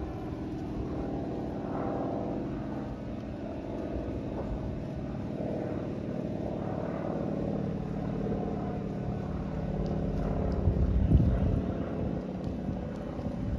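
Single-engine propeller plane flying overhead, a steady engine-and-propeller drone. Wind buffets the microphone about three-quarters of the way through.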